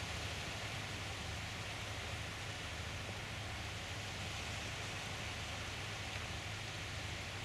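Steady, even hiss of outdoor ambient noise with a low hum beneath it, unchanging throughout, with no distinct knocks or other events.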